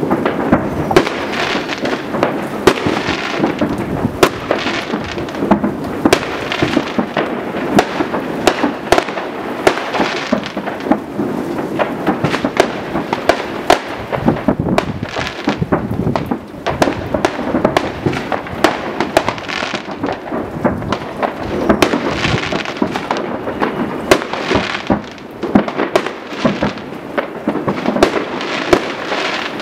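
Many New Year's fireworks going off at once across a town: a constant crackle of overlapping bangs and pops, too many to count, blending into a continuous rumble.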